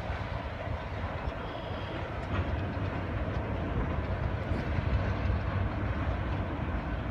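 Union Pacific diesel locomotive running as it pulls a short freight train of hopper and tank cars along the track, a steady low rumble of engine and rolling wheels.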